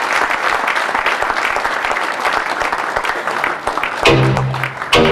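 Audience applauding. About four seconds in, loud music chords cut in over the clapping, the first at about four seconds and a second about a second later.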